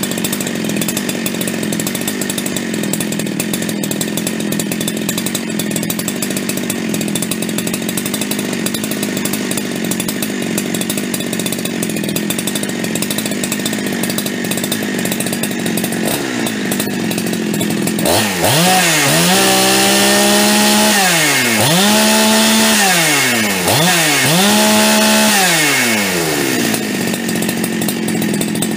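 Big-bore two-stroke Husqvarna chainsaw idling steadily, then revved to full throttle with no load three times from about 18 s in. The note climbs and holds high for a couple of seconds before dropping back to idle. It is running at its no-load top speed of around 13,000 rpm, tuned slightly rich.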